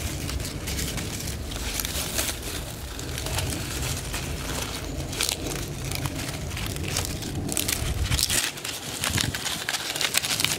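Dry leaves and dry grass crinkling and crackling as hands fold and squeeze them into a tinder bundle, the crackling growing denser and louder over the last few seconds. A low rumble runs underneath and drops out about eight seconds in.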